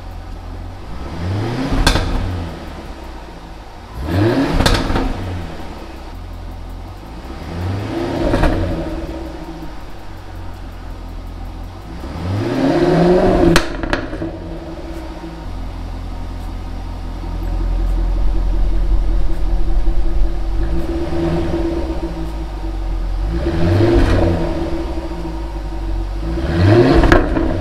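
Jaguar F-Type R's supercharged 5.0-litre V8 heard at the exhaust tips, revved again and again from idle. There are about eight quick rev blips, each rising and falling in pitch. Between them it idles, and the idle gets louder past the middle as the active exhaust settings are stepped through.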